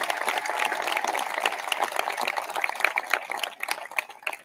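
Audience clapping after a graduate's name is read out, thinning out near the end.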